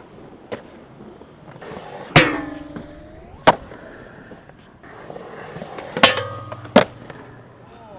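Skateboard hitting and landing on a skatepark's surfaces: four sharp clacks. After the first comes a ringing that falls in pitch, and after the third a brief steady ring.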